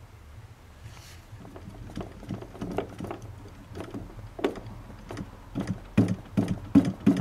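Engine of a 1:5 scale Stearman PT-17 model biplane being turned over by hand-flipping its wooden propeller, with short compression knocks and puffs. The knocks are irregular at first, then come louder and closer together, about two or three a second, near the end.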